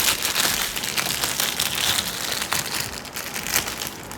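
Packaging crinkling and crackling as it is handled, a dense run of small crackles that eases off toward the end.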